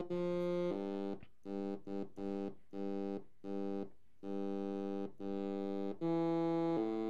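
Arturia MicroBrute SE analog monophonic synthesizer played through a small Soundfreaq speaker: a run of single notes one at a time, longer held notes at the start and near the end, with shorter notes about two a second in between.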